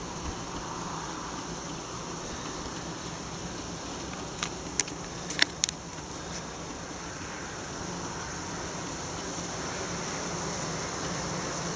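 A mass of honeybees buzzing in a steady, even hum as they work over extracted honeycombs, with a few sharp clicks about halfway through.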